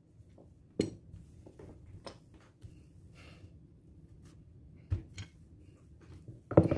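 Marble rolling pin rolled over pizza dough on a wooden cutting board: soft rolling and handling noise with a few short knocks, the loudest near the end.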